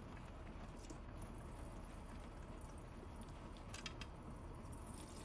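Automatic transmission fluid dripping from the underside of a Mini Countryman's gearbox with its oil pan off: a few faint ticks over a low, steady hiss.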